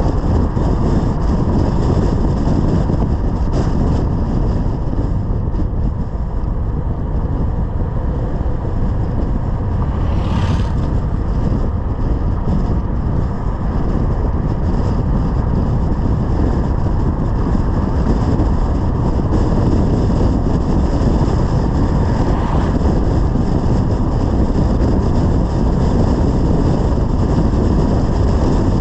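Steady rush of wind and tyre noise from a car driving at road speed, heaviest in the low end. There is a brief louder hiss about ten seconds in.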